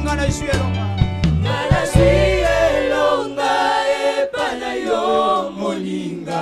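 Gospel choir singing in harmony with a male lead voice. Low instrumental notes under the voices stop about two and a half seconds in, leaving the voices alone.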